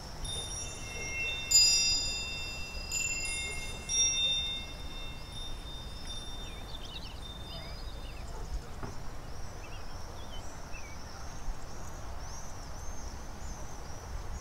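Wind chime ringing: a few strikes in the first four seconds, each a cluster of long high tones that fade out by about six seconds in. Birds chirp faintly throughout.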